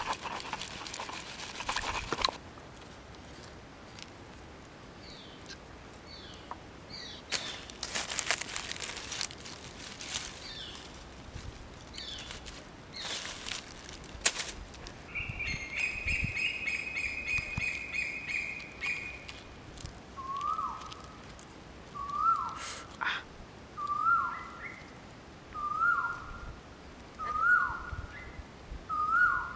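Pestle grinding in a mortar for the first two seconds, then birds calling: a few short falling chirps, a steady trill about halfway, and from about two-thirds in a falling whistled call repeated roughly every second and a half.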